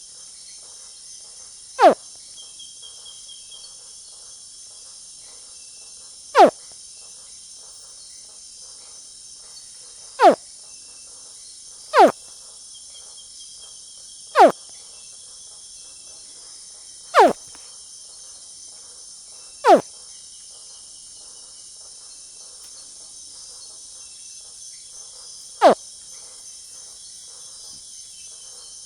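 Young crocodile giving short chirping calls that drop sharply in pitch, eight of them a few seconds apart, over a steady high-pitched chorus of crickets.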